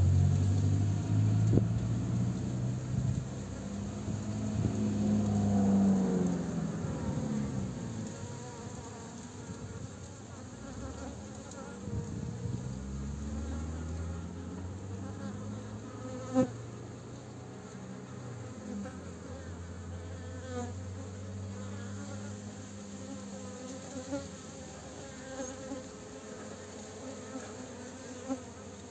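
Bees buzzing in flight close to the microphone, the hum swelling and sliding up and down in pitch as they pass, in several passes with the loudest in the first few seconds. A single sharp tick about halfway through.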